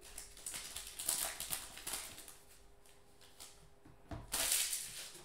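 Foil trading-card pack crinkling as it is torn open and handled, in two bursts: the first two seconds and again about four seconds in.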